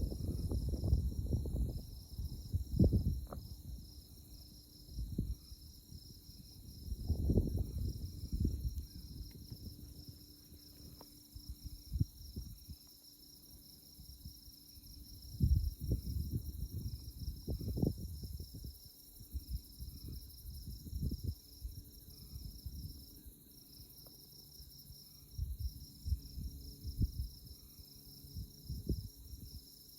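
A night chorus of crickets and other insects in tallgrass prairie: a high, continuous pulsing trill with a steadier high drone beneath it. Irregular low rumbles of wind on the microphone come and go, the loudest of them near the start and around a third and half of the way through.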